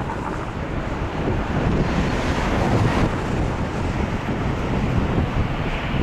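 Airbus A330-243's two Rolls-Royce Trent 700 turbofans at takeoff thrust: a loud, steady jet rumble, with wind buffeting the microphone.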